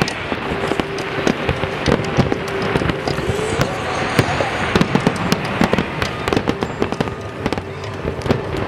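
Fireworks display: aerial shells bursting with dense crackling and many sharp pops in quick succession.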